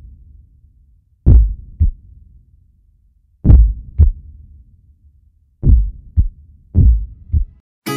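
Heartbeat sound effect: four deep double thumps (lub-dub), the last two coming faster. Guitar music starts right at the end.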